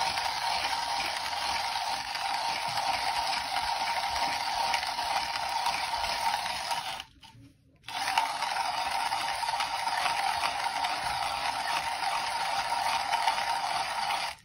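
Comandante C40 Mk4 hand coffee grinder, its Nitro Blade steel conical burrs grinding coffee beans at a fine setting as the handle is cranked: a steady dense grating that stops for under a second about halfway.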